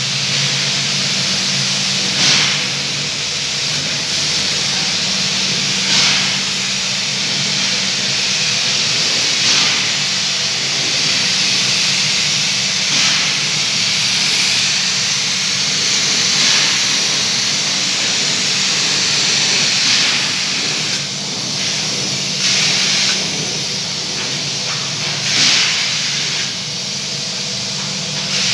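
Fiberglass spray-up gun fed by hoses running on compressed air, a loud steady hiss that swells briefly about every three to four seconds, over a low steady hum.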